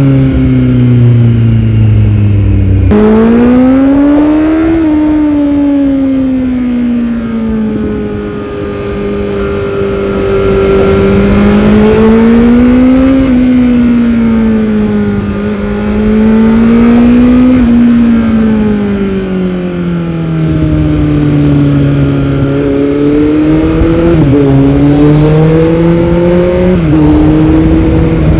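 Kawasaki Z900's inline-four engine through a Yoshimura R77 full-system exhaust, heard from on the bike while riding: the engine note rises and falls several times as the rider accelerates and eases off, with a sudden jump in pitch about three seconds in.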